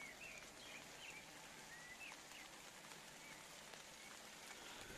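Faint steady patter of light rain, with a small bird giving a string of short chirps over it.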